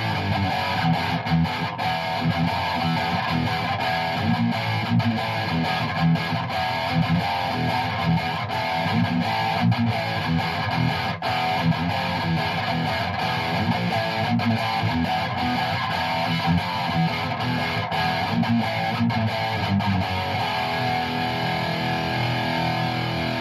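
Distorted electric guitar riff played through a Hughes and Kettner Tubemeister 18 valve amp head, turning to a held chord ringing out about twenty seconds in.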